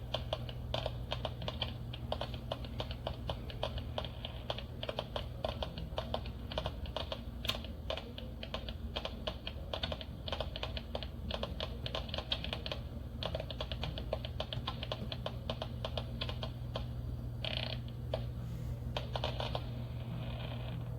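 Rapid, irregular clicking and crackling that goes on without a break, over a steady low hum.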